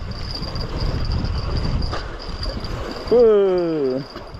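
A man's drawn-out exclamation, falling in pitch, about three seconds in. Before it comes a low rumbling noise, and a steady high-pitched whine runs throughout.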